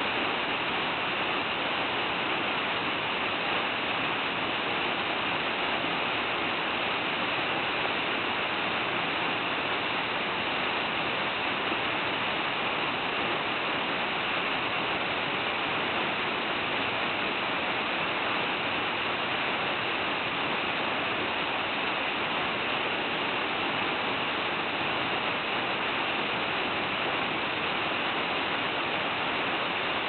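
Large waterfall in full flow: white water cascading down a rock face, making a steady, unbroken rushing roar.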